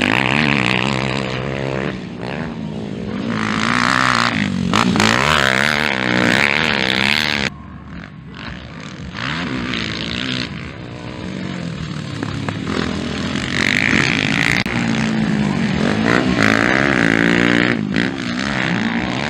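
Motocross dirt bike engines revving hard, their pitch rising and falling over and over as the throttle is opened and shut over jumps and through corners. The sound drops suddenly about halfway through, then builds again.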